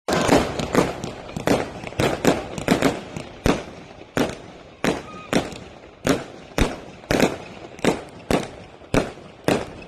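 Fireworks going off in a quick, uneven series of sharp bangs, about two a second, each with a short fading echo.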